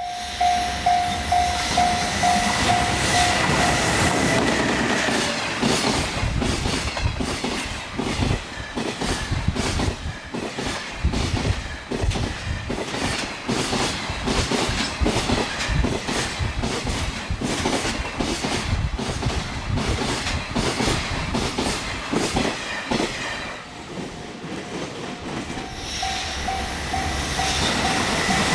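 Freight train wagons passing over rail joints at speed, a loud rhythmic clickety-clack of wheel sets striking the joints. A level crossing warning bell rings in a fast repeating ding-ding at the start and again near the end.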